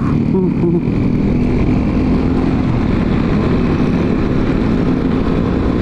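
Honda Vario scooter's single-cylinder engine running steadily while riding, heard under heavy rushing wind noise on the camera microphone.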